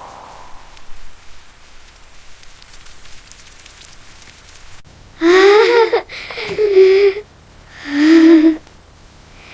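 Light rain patter, then about five seconds in three short, loud, high-pitched wordless voice sounds, the first wavering in pitch and the other two held steady.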